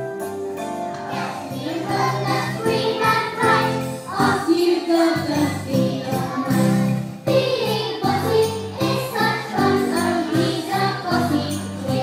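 A group of young children singing a song with musical accompaniment, jingle bells shaking along throughout.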